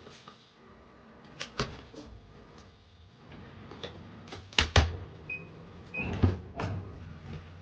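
Household handling noises: several sharp knocks and clicks, some in quick pairs, with two short high tones a little after five and six seconds in.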